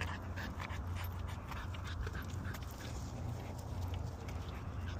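A young puppy panting as it walks on a leash, with many light, irregular ticks of steps on a concrete sidewalk and a steady low hum underneath.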